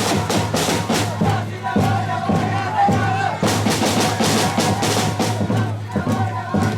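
Music heavy on drums and percussion, with a steady beat of drum strokes.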